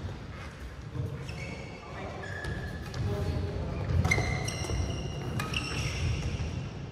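Badminton rally: sports shoes squeaking in short chirps on the synthetic court mat, with sharp clicks of rackets hitting the shuttlecock and the low thud of footwork.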